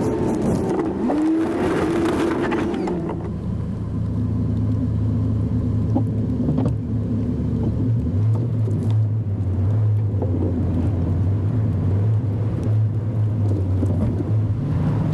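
Chevy 2500 pickup truck engine running under a steady low drone. In the first few seconds a whine rises and falls in pitch.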